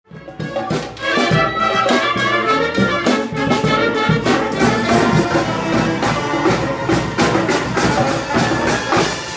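Street band of clarinets, flutes, saxophones and trumpets playing a lively tune together, with drum hits keeping the beat.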